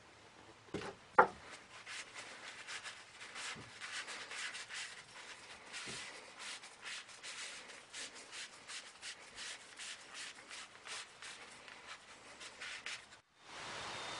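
Cloth rag rubbing mineral oil into a turned cherry-wood citrus reamer, with many quick strokes. A sharp knock about a second in is the loudest sound. The rubbing stops near the end.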